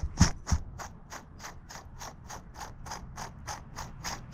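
Old cartridge bottom bracket from a Trek Shift 3 bicycle, its spindle turned by hand, giving a steady run of dry clicks at about four a second: the sound of dry, worn bearings. Two low knocks come in the first half-second.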